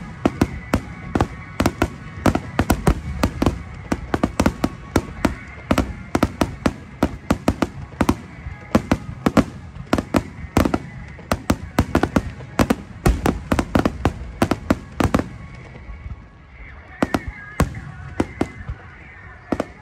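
Fireworks display: a rapid barrage of aerial shell bursts and crackling reports, several bangs a second, thinning out to scattered bangs near the end.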